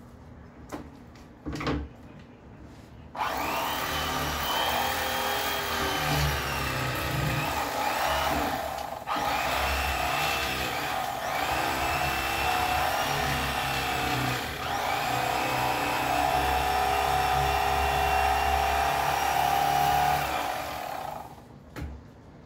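Electric fillet knife running as it cuts through a crappie, a continuous motor buzz whose pitch wavers with the load of the cut. It switches on about three seconds in, dips briefly twice, and shuts off near the end.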